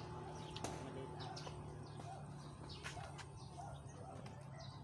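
Faint bird chirps: a few short high calls scattered over a low steady hum.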